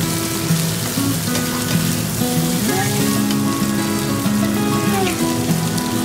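Shrimp and scallions sizzling in a hot nonstick wok as they are stir-fried with a spatula, a steady hiss, under background music with a slow melody.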